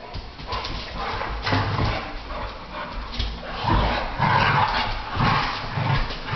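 Two pit bulls play-fighting: dog vocal noises and scuffling in irregular bursts, louder in the second half.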